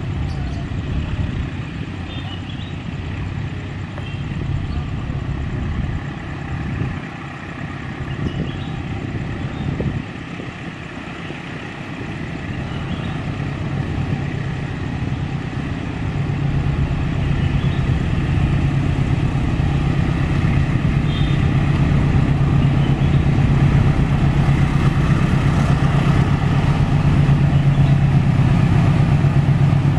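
CC206 diesel-electric locomotive hauling a container train approaching, its diesel engine running with a steady low hum that grows louder from about halfway through as it nears.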